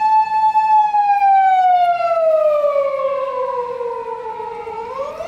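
Emergency vehicle siren wailing: one long tone held high, then falling slowly over about four seconds and swooping back up near the end.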